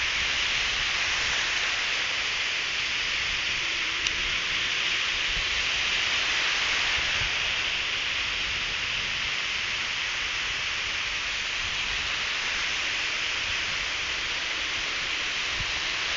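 Steady rushing hiss of breaking ocean surf, with a faint click about four seconds in.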